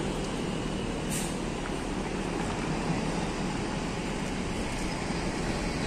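Coach bus diesel engine running as the bus pulls slowly away, a steady low rumble, with a brief high hiss about a second in.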